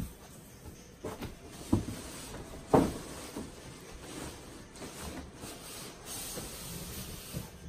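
Large cardboard speaker carton being tipped over and handled: cardboard rubbing and scraping, with a couple of dull thumps, the loudest about three seconds in.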